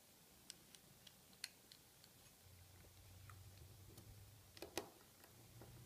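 Faint, scattered small clicks and ticks of a thin hand tool working on a metal can seamer pin assembly being taken apart, the loudest click a little before the end.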